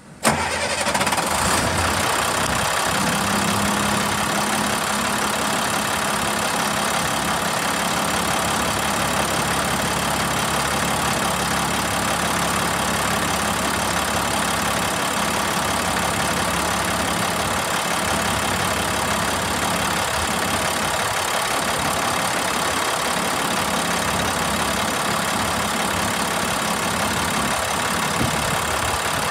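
International DT466E inline six-cylinder turbodiesel running in the truck's engine bay: it comes in suddenly, shifts during the first couple of seconds as it settles, then idles steadily.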